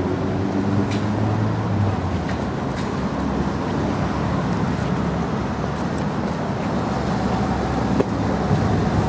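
Steady road traffic noise, with the hum of a car engine passing in the first couple of seconds and a single sharp tap about eight seconds in.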